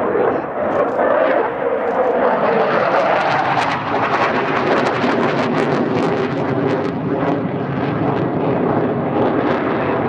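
Mikoyan MiG-29's twin RD-33 turbofan engines running loud as the fighter climbs steeply, a broad rushing jet noise with a crackle that sets in about three seconds in and carries on.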